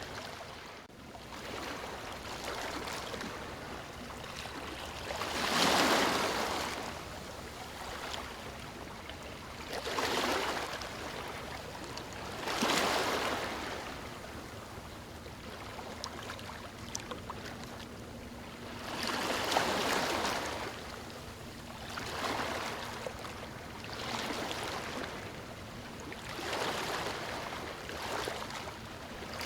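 Sea waves breaking and washing up a beach, each surge swelling and fading every few seconds over a steady wash of water.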